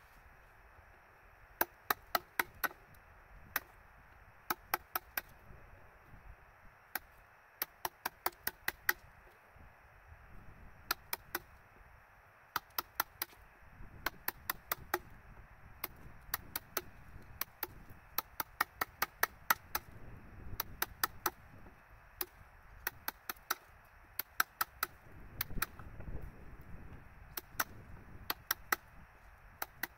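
Hammer striking a chisel in quick runs of three to six sharp taps, over and over, with short pauses between the runs.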